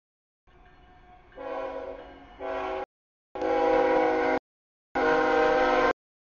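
CSX freight locomotive's air horn sounding for a grade crossing in three blasts: the first long, starting faint and swelling as the train approaches, then two louder blasts of about a second each.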